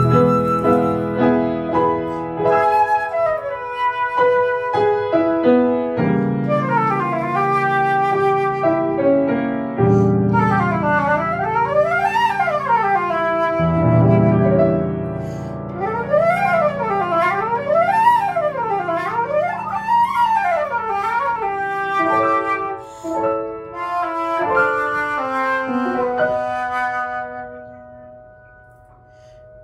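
Concert flute and grand piano playing a classical duet, with stretches of fast rising and falling runs in the middle; the music grows quiet near the end.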